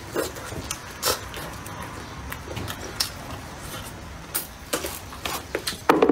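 Close-miked eating: a person biting and chewing braised meat with wet smacking and slurping mouth sounds, irregular short clicks throughout and a louder smack near the end.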